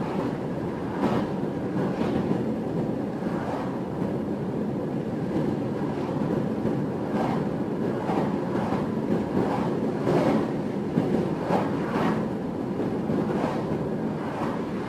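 Steady road noise inside a moving car at highway speed: tyre rumble and wind, with short louder ticks and swishes scattered through it.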